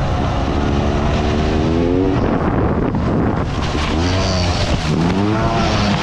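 Sherco trials bike engine revving hard in three rising surges over a steady low rumble as the rider powers up a dirt trail.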